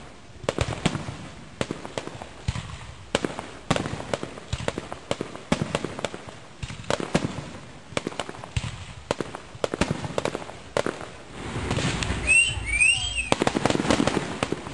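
Fireworks display: a quick succession of bangs and pops from aerial shells bursting, turning into a loud, dense run of bangs and crackle near the end.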